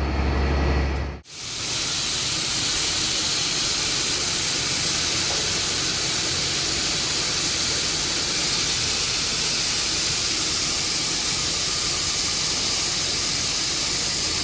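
Shelled corn pouring out of a grain wagon into a dump pit: a steady rushing hiss that starts sharply about a second in, after a vehicle engine hum.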